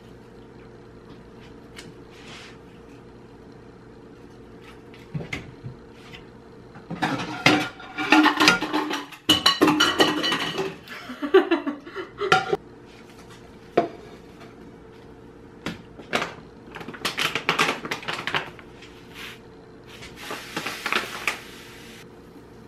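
Kitchenware clattering: pots, a plate and utensils knocked and handled in two busy spells of sharp clinks and clanks, over a steady low hum. Near the end there is a short hiss as sugar is poured from a measuring cup into the pot.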